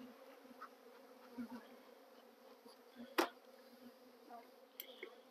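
Honey bees buzzing around the hives, a faint steady hum, with one sharp knock about three seconds in.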